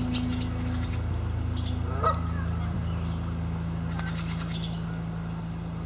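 Barn swallows twittering in three short bursts of rapid, high chirps, over a steady low hum.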